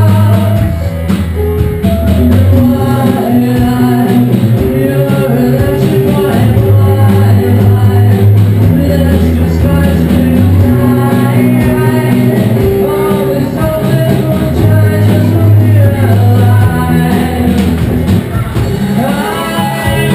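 Live rock band playing: electric guitars, a bass line and drum kit under a male singer.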